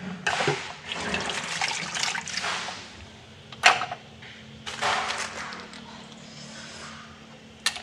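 Coconut-milk curry bubbling in uneven bursts as it simmers in an aluminium wok, with a sharp click about three and a half seconds in and another near the end.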